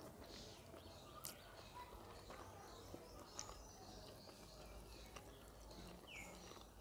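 Near silence with faint soft clicks and squishes of fingers mixing cooked rice with fried greens on a steel plate, and one short faint chirp a little after six seconds.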